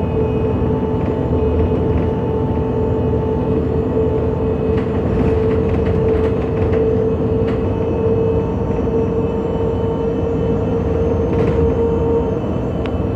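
MAN NG 273 T4 articulated city bus running on LPG, under way, its engine and driveline giving a deep rumble with a steady whine over it and a few light rattles; the whine fades near the end.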